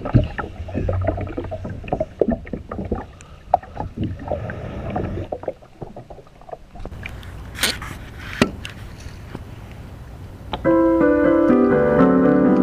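Shallow water lapping and sloshing against a camera held at the waterline: irregular splashy knocks over a low steady rumble. About ten seconds in, piano music begins.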